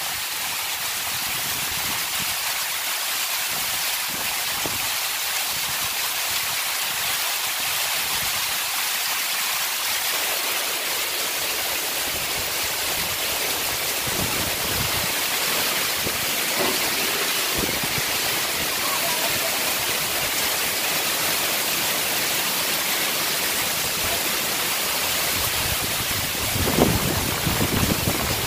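Heavy rain pouring down, a steady even hiss that never lets up. Near the end, gusts of wind begin buffeting the microphone with low rumbles.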